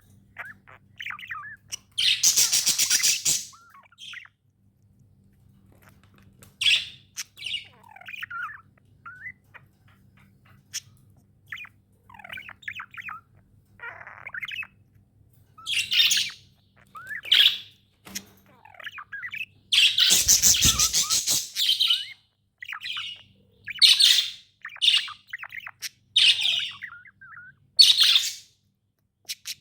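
Budgerigars (budgies) chirping and warbling in short scattered calls, with two louder, longer calls about two seconds and twenty seconds in.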